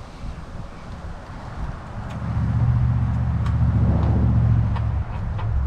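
A low, steady mechanical hum comes up about two seconds in and eases off slightly near the end. Near the end a chicken starts clucking several times.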